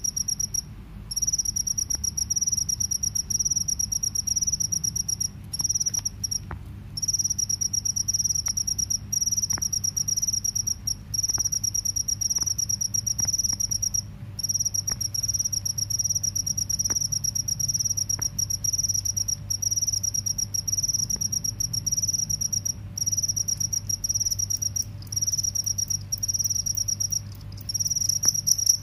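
Male crickets chirping by rubbing their raised wings together: a loud, shrill, rapidly pulsed trill, nearly continuous, broken by a few short pauses.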